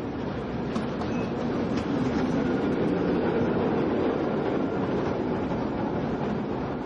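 Train running, a steady rumble that swells a little and then eases.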